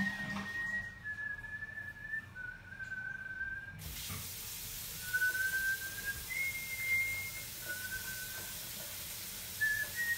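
A person whistling a slow tune, held notes that step up and down in pitch. About four seconds in, a tap starts running into the sink underneath the whistling.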